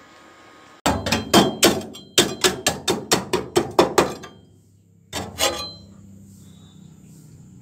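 A hammer striking steel in quick blows, about five a second for some three seconds, then two more after a short pause; a few blows leave a brief metallic ring.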